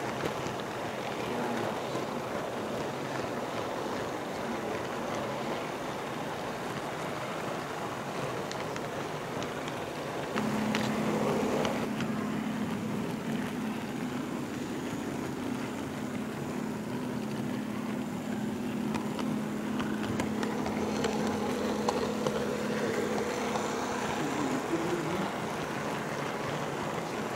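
Running noise of an HO-scale model train car rolling along the track, picked up by a microphone riding on the car, with faint clicks. A steady low hum comes in about ten seconds in and stops near the end.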